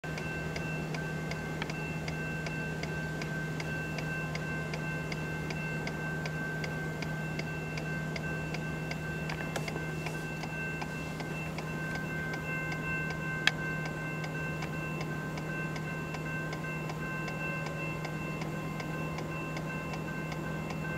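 Railroad swing bridge in operation as its span swings: an even ticking, about three ticks a second, over a steady ringing tone and a low hum, with one sharp click about two-thirds of the way through.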